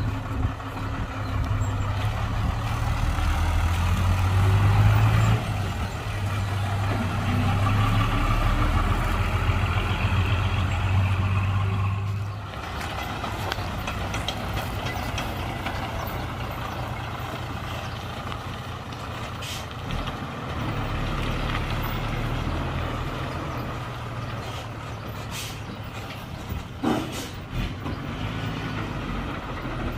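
Heavy diesel construction machinery working at a soil-filling site: a deep engine note, louder and under load for about the first twelve seconds, then dropping to a lower, steadier run. A few short sharp knocks come near the end.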